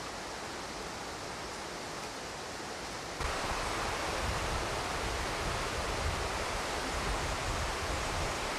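Steady rushing noise with an irregular low rumble underneath, stepping up louder about three seconds in.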